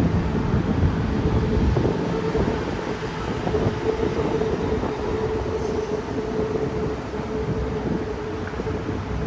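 BTS Skytrain train running along the elevated track: a steady rumble with a held hum through the middle.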